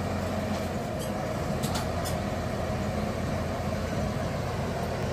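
Steady drone of a car ferry's engine under way, with a low hum and a constant tone over it, and a few light clicks between one and two seconds in.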